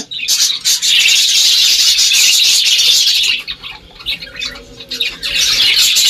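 Budgerigars chirping and chattering, a dense run of high calls that thins out for about two seconds past the middle, then picks up again.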